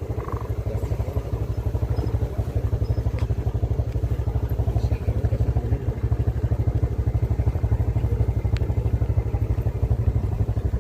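Motorcycle engine running steadily on the move, a low, fast-pulsing sound.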